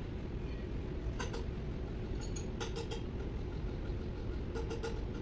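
Three short clusters of metallic clicks, about every second and a half, from a hand wrench being worked on the valve adjusters of a Komatsu SAA12V140 diesel engine. A steady low rumble runs under them.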